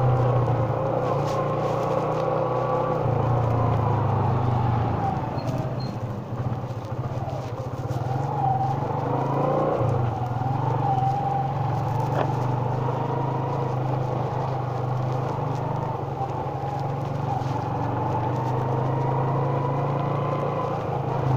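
Motorcycle engine running while being ridden, its note rising and falling as the speed changes.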